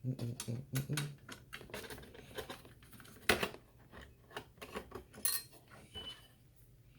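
Irregular small clicks and clinks of metal hardware being handled, screws and cover-plate parts, with one sharper click about three seconds in.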